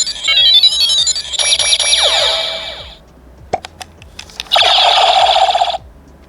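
Kamen Rider Decade K-Touch toy playing electronic sound effects: a quick run of beeps, then a shimmering chime that fades out about three seconds in. After a few button clicks, a loud buzzing tone plays for just over a second.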